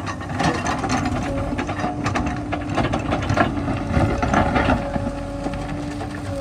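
Backhoe loader's diesel engine running with a steady hum, under irregular metallic clanks and knocks from the working machine that are busiest midway through.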